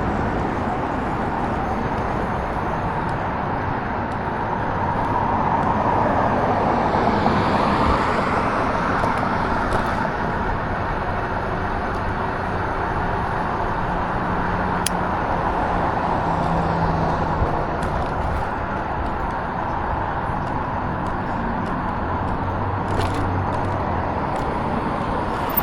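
Steady rushing noise of a moving vehicle, wind and road noise, swelling a little about six seconds in.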